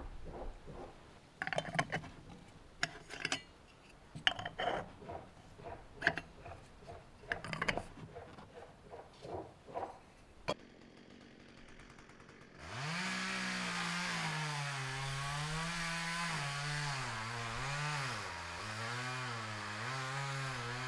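Scattered clicks and knocks. Then, about two-thirds of the way in, a chainsaw starts up and runs steadily, its pitch wavering up and down.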